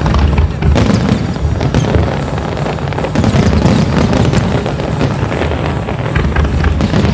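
Fireworks display in a dense barrage: deep overlapping booms of aerial shells bursting, mixed with rapid crackling.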